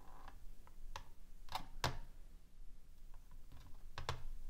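Small metal pump parts clicking and tapping against the plastic platform of a digital kitchen scale as they are lifted off and set down: a few light, separate clicks, the clearest just before two seconds in and near the end.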